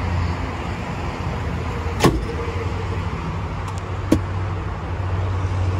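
A Kia minivan's engine idling with a steady low hum, and two sharp clicks, about two and four seconds in.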